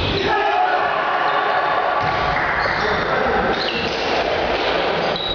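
Sounds of an indoor volleyball rally: the ball being struck and bouncing, short high squeaks of sneakers on the court floor, and players' indistinct shouts.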